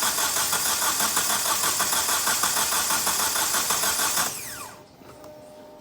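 2009 Hyundai i30 petrol engine cranking on its starter motor without firing, camshaft sensor removed, with an uneven rhythm that sounds like a miss. This is the sign of a lack of compression, which a relative compression test confirmed. The cranking stops about four seconds in, spinning down with a falling whine.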